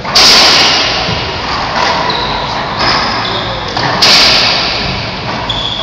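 Racquetball rally in an enclosed court: sharp, loud hits of racquet on ball and ball off the walls, each ringing with echo. The two loudest come just after the start and about four seconds in, with lighter hits and a few short high squeaks between them.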